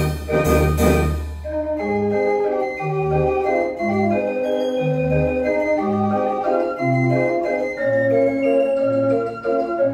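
Dutch street organ (draaiorgel) playing a tune: sustained pipe notes over a bass line that steps about once a second, with a loud drum-and-cymbal crash near the start.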